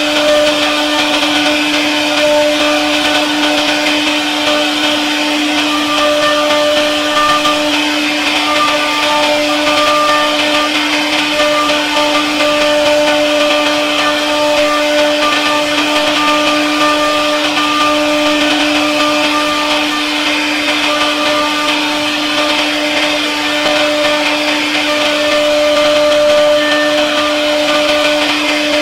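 CNC router spindle running steadily with a constant whine as its bit carves a relief pattern into a wooden door panel, with higher tones coming and going as the cut changes.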